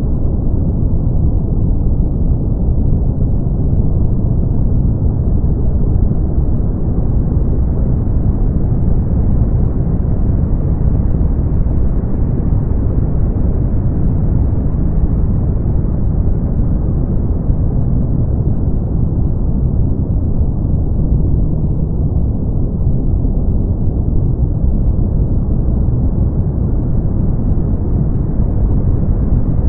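Brown noise: a steady, deep rushing noise with most of its weight in the low end and little treble. Its top end slowly brightens and dulls again over many seconds.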